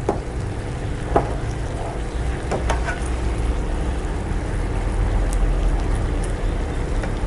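A plastic spatula stirs shrimp and mushrooms through simmering sauce in a nonstick wok, with a few short scrapes and knocks against the pan in the first three seconds. Under it runs a steady low rumble.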